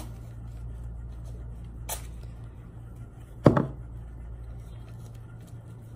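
Masking tape being torn off its roll by hand: a faint click about two seconds in and one sharp, short tear-and-knock sound about halfway through, the loudest thing, over a steady low hum.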